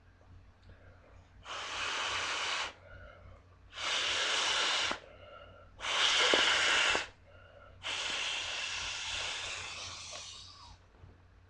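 Mouth blowing air into the valve of an inflatable plastic ball: four long breathy blows, the last one longer and fading out.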